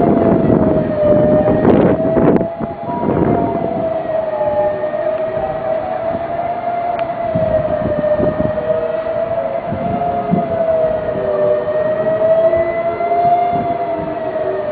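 Outdoor tornado warning siren sounding one long steady tone, its pitch drifting gently up and down, with fainter sirens at a lower pitch behind it. A few loud bursts of rumbling noise cut in during the first three seconds.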